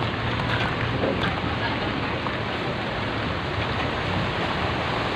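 Steady rushing and sloshing of floodwater churned by a container truck's wheels, with a low steady engine hum underneath.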